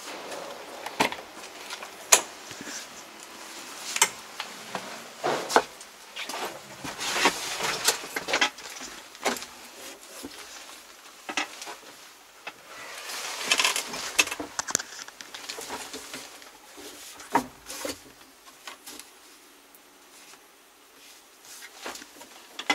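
Scattered clicks, knocks and rustling from someone climbing into a tractor cab and moving about among its fittings and controls, with no engine running.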